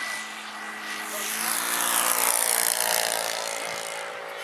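Small turbine-powered RC jet (Boomerang Nano) flying past, its turbine whine and jet rush swelling to a peak about two seconds in and then fading.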